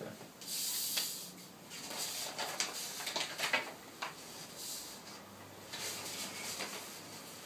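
Paper inkblot cards rustling and sliding over a wooden tabletop in several short irregular bursts as one card is swapped for another.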